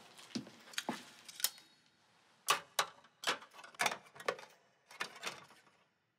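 Shaving tools being handled on a metal tray: a string of small, irregular clicks and taps as the implements are picked up and set down against the tray and a small metal bowl.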